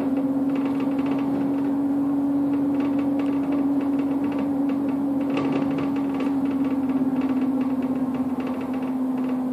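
Bus drivetrain heard from inside the cabin while cruising: a steady, loud hum with one strong droning tone whose pitch sinks slightly near the end as the bus eases off. Light rattles run through it.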